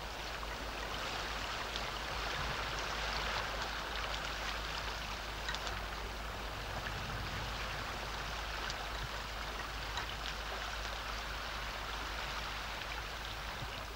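Calm sea water lapping gently, a steady soft wash of water with faint small splashes.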